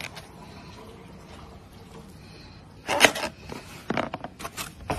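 Faint room tone, then from about three seconds in, short scraping and crackling handling noises from a plastic fork and a foam takeout container, the first the loudest.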